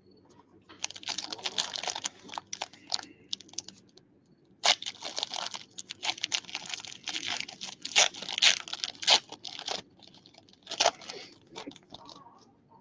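Plastic wrapping of trading-card packs and card holders crinkling and tearing in two long spells of crackle, with a short burst near the end.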